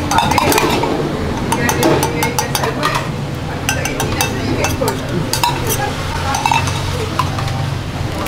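Quick metallic clinks and taps of a utensil against a small aluminium cup, many in a row between about a second and a half and six seconds in, over a steady low hum.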